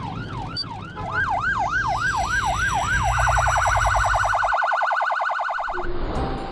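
Emergency vehicle sirens, more than one at once: a slow up-and-down wail, joined about a second in by a faster wail. At about three seconds this switches to a rapid yelp, which cuts off shortly before the end.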